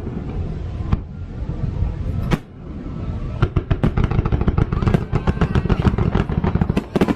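Aerial fireworks: two single sharp bangs in the first few seconds, then dense rapid crackling from about three and a half seconds in, over a steady low rumble.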